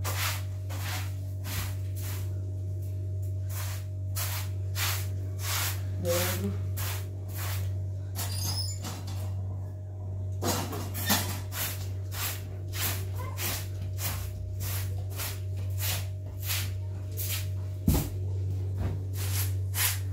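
Short straw hand broom sweeping a carpet in quick, even strokes, about two a second, pausing briefly partway through, over a steady low hum.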